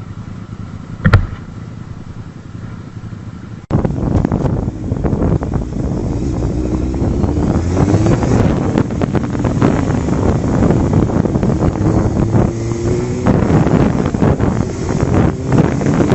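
Low road noise with one sharp knock about a second in. From about four seconds, loud wind rush on the microphone over a vehicle engine, its pitch rising several times as it accelerates.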